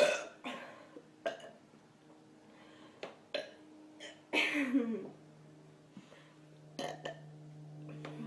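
A woman burping after gulping carbonated soda: a loud burp right at the start, a few short clicks, and a second burp about four seconds in that falls in pitch.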